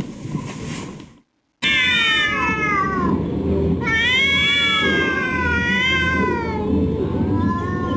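Domestic cat meowing: a series of drawn-out meows that glide and waver in pitch, the longest lasting nearly three seconds from about four seconds in, with a fainter one near the end. A brief silence falls just after the first second.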